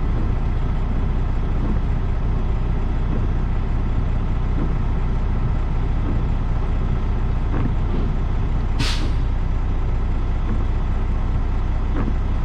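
Semi truck's diesel engine idling steadily, with one short hiss of air from the air brakes about nine seconds in.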